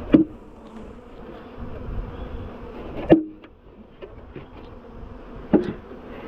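Honey bees buzzing steadily around an open hive, with three sharp knocks about a second, three seconds and five and a half seconds in.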